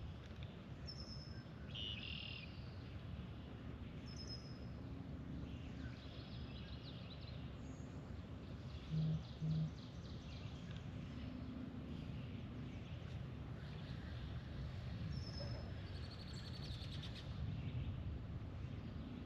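Lakeside ambience: birds chirping here and there over a steady low background noise. Two short, low beeps about nine seconds in.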